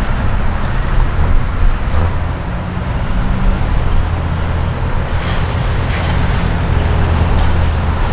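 Heavy diesel semi-trucks and other road traffic going by, with a steady low engine drone under tyre and road noise.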